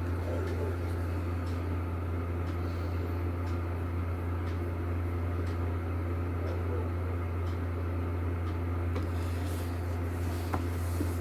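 A steady low hum that does not change, with a few faint clicks here and there.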